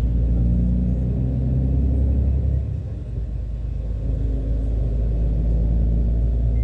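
Bus engine running as the bus drives, heard from inside the cabin: a steady low drone that eases off about two and a half seconds in, then picks up again a second or so later.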